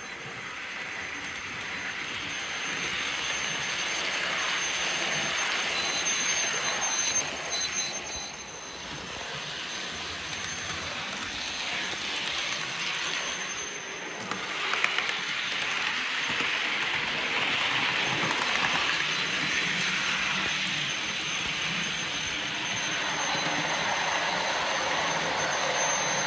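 Bachmann OO gauge Blue Pullman model train running on the layout's track: a steady rushing of wheels on the rails with motor hum. It swells and eases several times as the train nears and passes.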